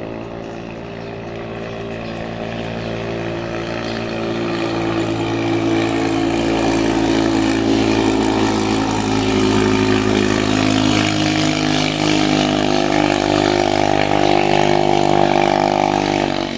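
Modified Yasuka 500 boat engine, fitted with a PWK 35 carburettor and a custom camshaft, running flat out at steady revs on a racing boat. It grows louder over the first several seconds as the boat comes nearer, then holds loud and even.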